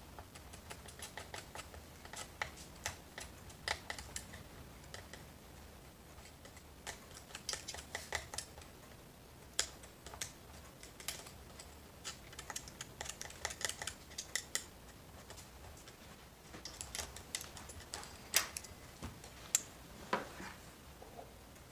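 Irregular small clicks, taps and scrapes of a small hand tool picking at a chainsaw's oiler slots and oil ports, clearing out packed dirt.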